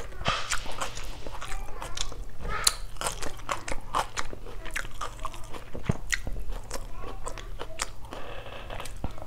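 A person chewing a mouthful of shredded chicken and sliced onion salad close to a clip-on microphone: wet mouth clicks and crisp crunches.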